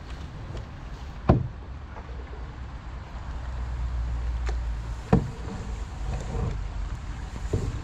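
Canoe being paddled on calm water: a steady low rumble of the strokes, with two sharp knocks, about a second in and again about four seconds later, of the wooden paddle striking the canoe.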